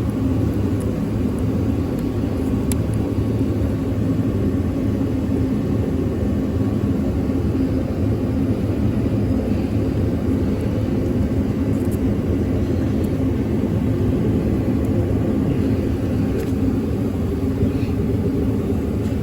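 Ford F-150's 5.4-litre V8 idling steadily, running with a jumper wire bridging fuse slots 48 and 27 to get past its crank-no-start fault.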